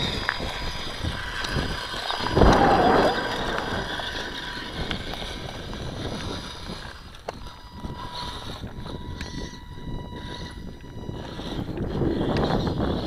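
Wind buffeting the microphone, with a strong gust about two and a half seconds in and another near the end, over a faint steady high whine.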